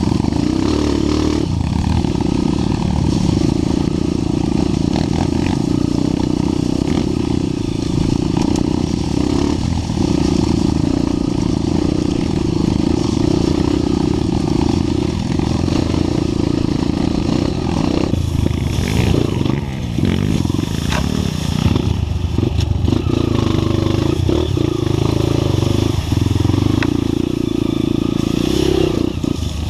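Trail motorcycle engine running steadily as the bike rides along, with the pitch shifting a little. Several knocks and some clatter come in about two-thirds of the way through.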